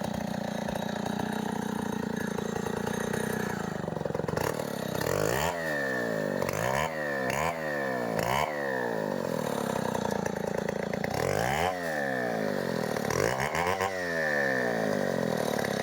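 Two-stroke chainsaw engine running, steady at first, then revved up and let fall back about eight times in quick succession from about five seconds in and again near the end.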